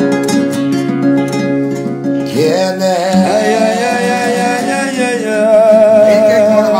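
A man singing a slow song with guitar accompaniment, holding long notes with a wide vibrato. About two and a half seconds in his voice slides up to a high held note.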